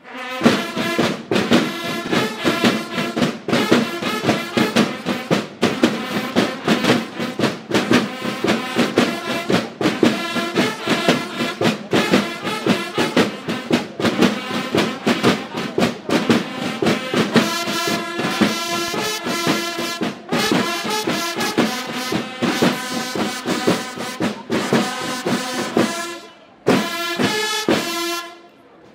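A Mexican military bugle-and-drum corps (banda de guerra) playing a march: bugles holding notes over rapid, steady field-drum strokes. Near the end it breaks briefly, then finishes with a few accented strokes and stops.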